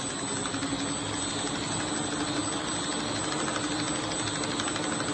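RC brushless motor spinning the rings of a foam-board model: a steady whirring hum with a fast, even clatter from the spinning parts.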